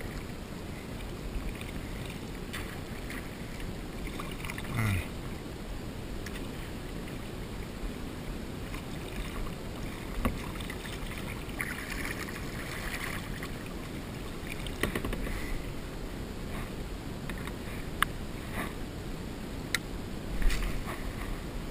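A kayak being paddled through shallow creek water: paddle strokes splashing over steady water noise, with a few sharp knocks scattered through, likely the paddle touching the hull.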